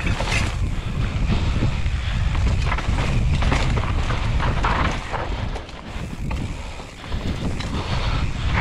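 Wind buffeting an action camera's microphone as a mountain bike descends a dirt trail, with a steady low rumble. Tyres run over dirt, and the bike rattles and knocks on the bumps.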